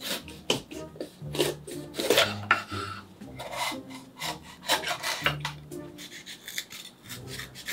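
An Opinel folding knife slicing through a crisp red bell pepper, with repeated short cutting crunches and the blade knocking and scraping on an end-grain wooden cutting board.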